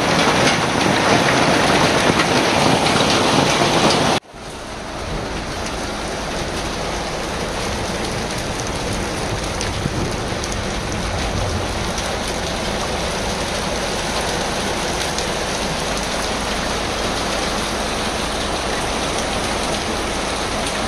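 Coin-sized hail and heavy rain pelting wet asphalt: a dense, steady hiss and patter. About four seconds in it cuts off abruptly, then resumes a little quieter and keeps falling steadily.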